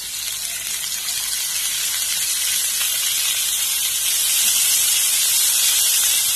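Tamarind extract sizzling loudly in hot sesame oil with sautéed green chillies and ginger in a frying pan. It is a dense, steady hiss that builds over the first couple of seconds, then holds.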